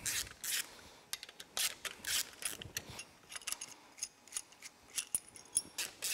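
A hand tool with a socket working bolts on a motorcycle engine case: irregular short metallic clicks and clinks, a few a second, with a faint metallic ringing about four to five seconds in.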